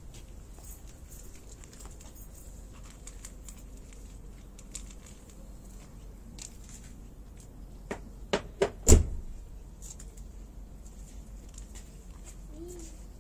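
Four quick sharp knocks, coming about eight seconds in, the last one the loudest, over a faint steady background hiss.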